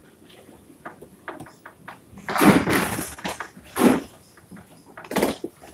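Candlepin bowling alley clatter: loud crashes and knocks of balls and pins on the lanes, the biggest about two and a half seconds in, then two shorter knocks near four and five seconds, with small ticks in between.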